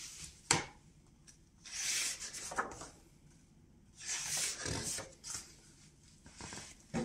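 Pages of a hardcover picture book being turned by hand: a sharp knock about half a second in, then two papery swishes of turning pages about two seconds apart, with lighter rustles near the end.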